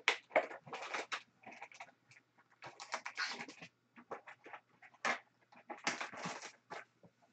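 Trading cards and a foil card pack being handled: irregular bursts of crisp rustling, crinkling and clicking of card stock and foil wrapper.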